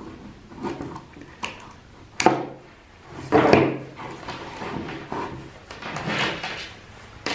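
Wire cutters snipping unneeded wires off a remote-start harness, with a sharp snip a little over two seconds in, amid rustling and light tapping as the loose wires are handled.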